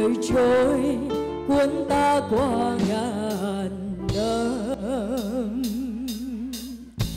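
A woman singing a pop song live into a microphone over backing music, holding a long note with wide vibrato over sustained chords. The accompaniment swells into a louder, fuller section near the end.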